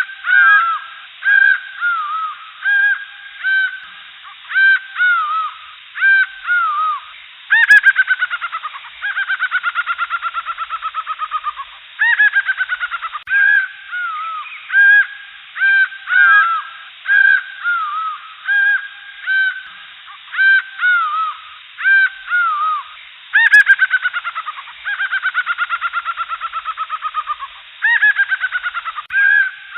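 Jungle birds calling: short rising-and-falling calls repeated about twice a second. Twice, about eight seconds in and again near 23 seconds, a loud call breaks into a long, fast series of notes falling in pitch for about four seconds.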